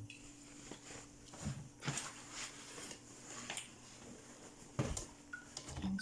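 Laundry being stuffed into the drum of a front-loading washing machine: soft rustling of fabric with a few light knocks against the door and drum, over a faint steady hum.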